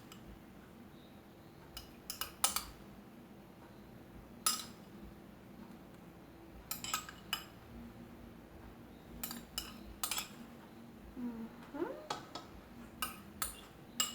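Light clinks of cutlery against a dish, coming in small scattered clusters of two or three taps, as toppings are spooned onto bread slices.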